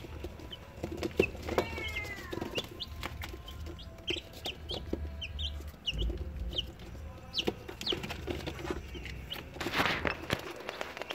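Rhode Island Red chicks peeping: many short, high, falling cheeps scattered throughout, with one longer falling call about two seconds in.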